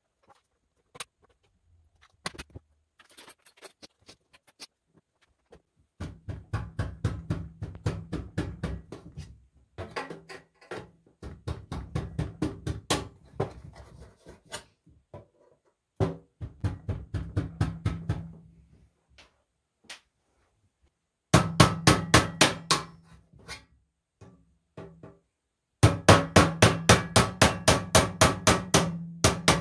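A hammer striking the handle of a knife to drive it through the lid of a large sheet-metal tin can. The blows come rapidly, in runs of a few seconds with pauses between.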